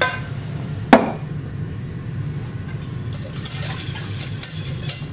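A small glass and a steel saucepan clinking while white wine and white wine vinegar are tipped into the pot: two sharp knocks about a second apart at first, then a run of lighter, ringing clinks near the end, over a steady low hum.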